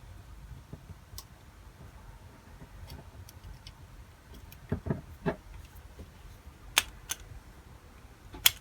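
Light scattered clicks and taps of small carburetor parts and hand tools being handled during reassembly, with a few sharper clicks in the second half.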